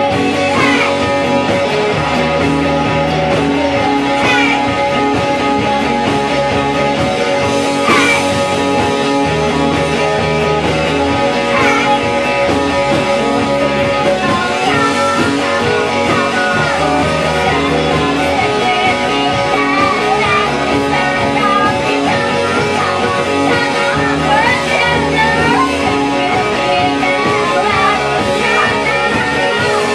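Rock band playing, with guitar to the fore over a bass line that repeats in a pattern every couple of seconds.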